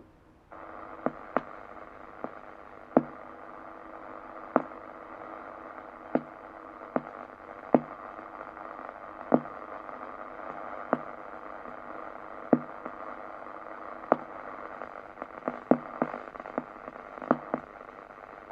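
Analog disaster-prevention radio loudspeaker switching on about half a second in: a steady hiss of radio noise with a faint hum, broken by irregular sharp crackles and pops. This is the heavy static of an aging analog receiver just before the chime plays.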